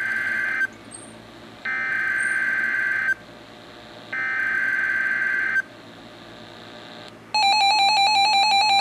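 NOAA Weather Radio SAME alert header received on a weather radio: three bursts of rapid data warble, each about a second and a half long, with a second of static hiss between them. About seven seconds in, the radio's alert alarm starts, a loud buzzy tone pulsing several times a second.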